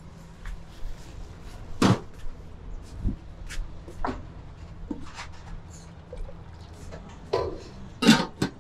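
Kitchen clatter of bowls and utensils: a string of scattered short knocks and clicks, the loudest about two seconds in and near the end, over a faint low hum.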